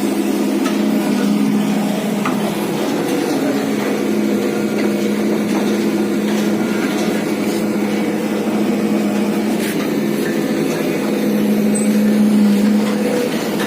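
Excavator running steadily with a constant humming tone, and a few faint knocks.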